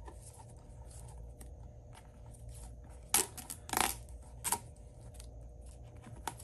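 Old wrap grip being peeled and unwound from a pickleball paddle handle: faint crackling as the tacky strip pulls free, with three short louder rips a little past the middle.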